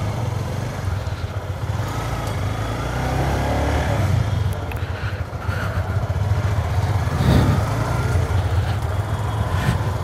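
Honda CBR150R's single-cylinder engine running steadily as the motorcycle rolls slowly at low speed, with a continuous low rumble.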